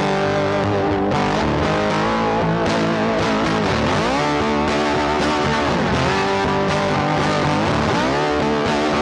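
Background music with guitar: a distorted electric guitar with bass, playing steadily with bending notes.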